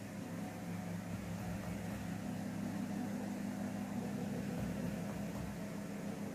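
Steady low machine hum over a faint hiss, unchanging throughout.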